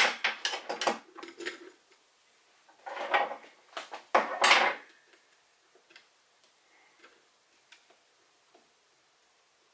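Metal hand tools clinking and clattering: wrenches, vise grips and a carriage bolt and nut being handled. A few loud clusters of clanks come in the first five seconds, then only faint scattered clicks.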